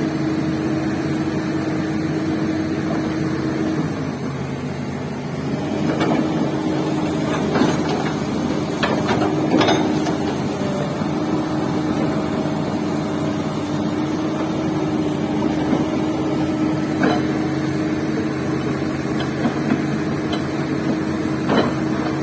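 Hydraulic excavator's diesel engine running steadily, its pitch dipping briefly about four seconds in before coming back up, with scattered metallic knocks and clanks.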